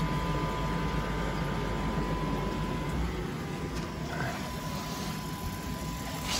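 Pond pump motor humming steadily while its new 2-inch ball valve is still shut, so no water flows through the pipework. The deepest part of the hum drops away about three seconds in.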